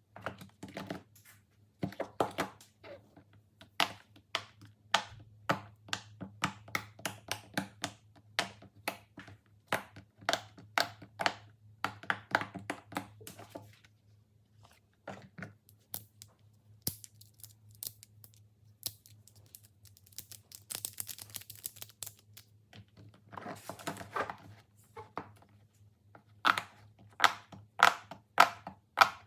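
Plastic fidget toys being handled, making rapid, irregular clicks and pops, with a short crinkling rustle about two-thirds through. A low steady hum runs underneath.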